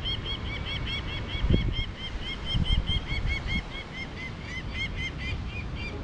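Peregrine falcon calling overhead in flight: a fast, even run of short harsh calls, about six a second, that goes on without a break. Under it, a low rumble of wind on the microphone, with a couple of stronger gusts.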